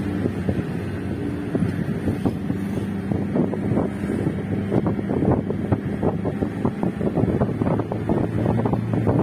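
Car engine running steadily while driving, with wind gusting across the microphone through an open window.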